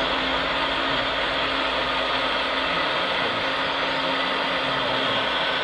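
Radio-controlled Liebherr 946 hydraulic excavator model working, its hydraulic pump and motors giving a steady mechanical whir with a low hum as the boom lifts.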